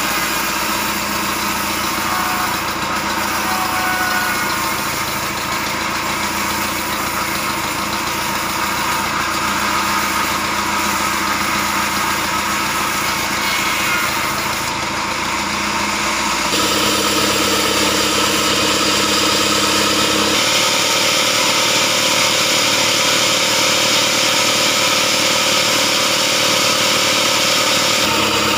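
Engine-driven band sawmill running with a steady mechanical drone as its blade cuts through a large, heavy log. The tone of the machine shifts about 16 seconds in and again about 20 seconds in.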